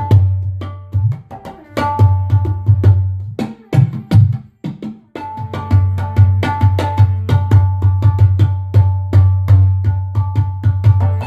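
Korg Wavedrum, an electronic hand drum, struck in a quick rhythmic pattern: each hit is sharp, with a deep sustained bass tone and pitched ringing above it. There is a brief pause a little before halfway, then the playing resumes.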